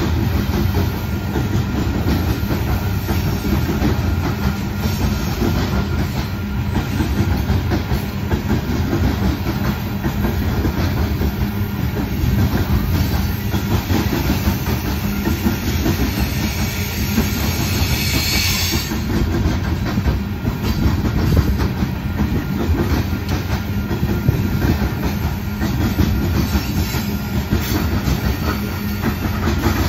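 Coal train's freight cars rolling steadily past: a continuous low rumble with the wheels clickety-clacking over the rail joints. A brief high hiss comes about two-thirds of the way through.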